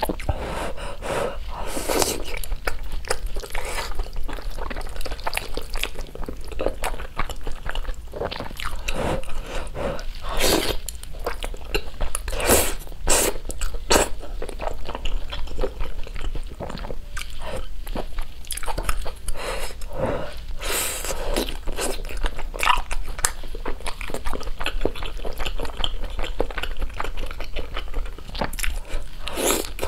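Close-up eating sounds of a person biting and chewing spicy noodles with fish balls and fish cakes: a run of many short, sharp mouth clicks and smacks, busiest about halfway through and again near the end.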